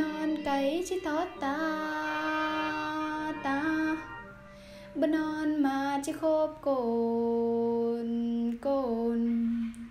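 A woman singing a slow Tai folk song (hát Thái). She holds long notes and slides up into several of them, with pauses between phrases, over a soft, sustained instrumental backing.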